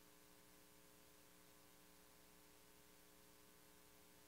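Near silence: a faint steady hum with a low hiss.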